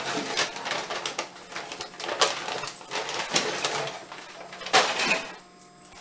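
Small 3D-printed plastic pieces being handled and set down: an irregular run of clicks, rattles and rustles, with sharper knocks about two seconds in and again near five seconds.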